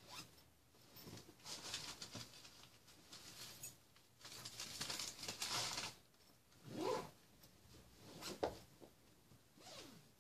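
A bag zipper being pulled and the contents rummaged through in several rustling bursts. About seven seconds in there is a short whine that rises and falls, and a sharp knock follows about a second later.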